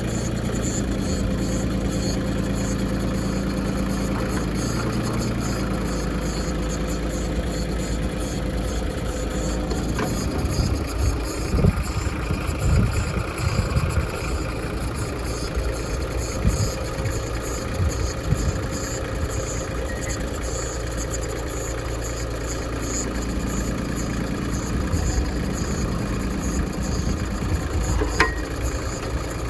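Ford 1720 compact tractor's three-cylinder diesel engine running steadily while it drives a Woods 750 backhoe. The engine note shifts about ten seconds in, and clanks and knocks of the bucket and boom working come between about 10 and 13 seconds and again near the end.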